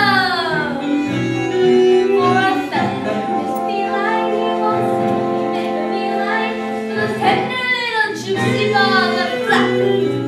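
Children singing a song from a school stage musical over sustained instrumental accompaniment; a held note slides down in pitch near the start.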